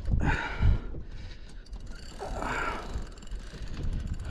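Spinning reel working against a hooked tuna: the reel's gears and mechanism ticking and whirring, in two spells, one at the start and one about two seconds in.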